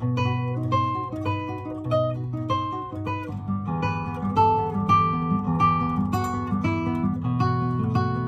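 A 1970s Japanese Aria AC30 classical guitar with a solid cedar top, played solo in classical style: a melody of plucked notes, about three or four a second, over held bass notes, each note ringing and fading.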